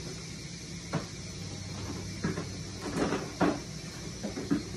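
Several short knocks and clunks of kitchen handling, such as cupboard doors and cookware being moved, spread through the few seconds, over a steady low hum.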